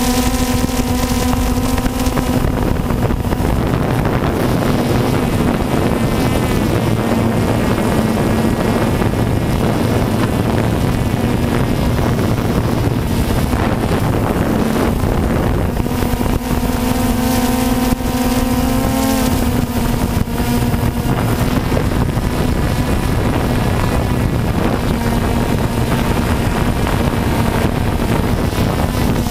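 Multirotor drone's motors and propellers humming steadily, heard from the aircraft's own camera, with the pitch climbing and then dropping about two-thirds of the way in as it descends toward the ground.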